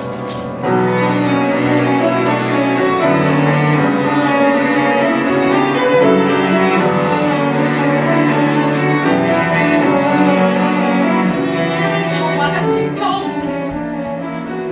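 Chamber ensemble of cello, violins and piano playing the instrumental introduction of an opera aria, the cello carrying sustained low notes under moving upper string lines.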